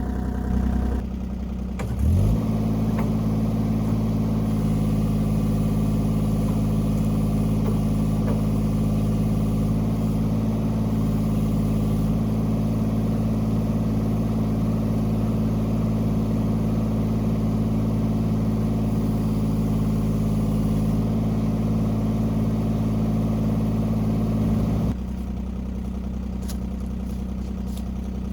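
An engine idling, then revved up about two seconds in and held at a steady higher speed, dropping back to idle near the end.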